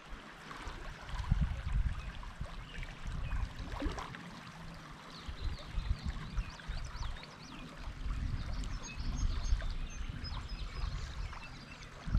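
Small creek running over a shallow riffle, with uneven low rumbling from wind buffeting the microphone. Faint short high chirps come in from about five seconds in.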